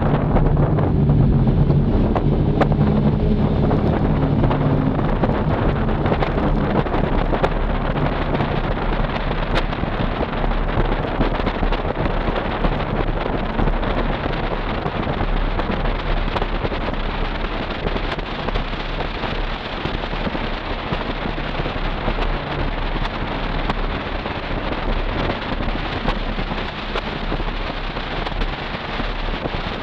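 Toyota 4Runner under way with a Flowmaster Super 40 exhaust, heard from inside the cabin. A low engine and exhaust tone is strong for the first few seconds, then sinks into steady road and wind noise as the truck cruises.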